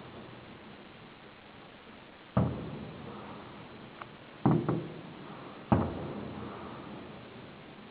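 Aerial firework shells bursting: four loud bangs, two of them in quick succession, plus a small pop, each followed by a fading rumble of echo.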